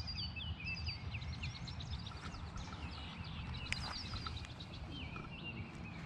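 Songbirds chirping and singing, many short repeated calls and quick sweeping notes, over a low steady rumble.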